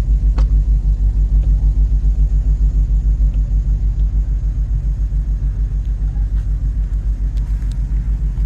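A steady low rumble pulsing quickly and evenly, about eight times a second, with a few faint clicks over it.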